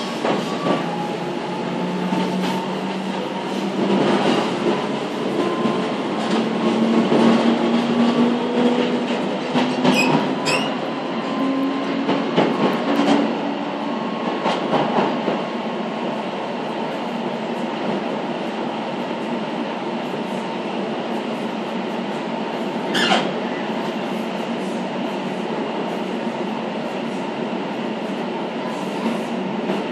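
Passenger train running, heard from inside the coach: a steady rumble of wheels on track, with faint whining tones that shift in pitch during the first half. A couple of sharp clicks come about a third of the way in, and a louder one a little past three-quarters.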